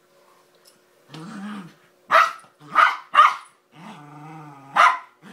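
Small dog growling at a Doberman it is wrestling with. The growling is broken by three loud, sharp barks in quick succession a little past two seconds in and one more bark near the end.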